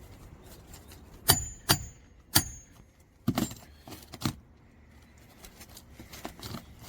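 Hammer striking the steel roof snake to drive a shingle nail: three sharp metallic strikes, each with a brief ring, then a few softer knocks.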